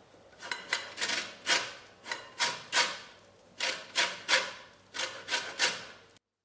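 Lemon peel being grated on a fine metal grater: short scraping strokes, about two a second, each a single pass that takes off only the yellow zest. The strokes stop abruptly near the end.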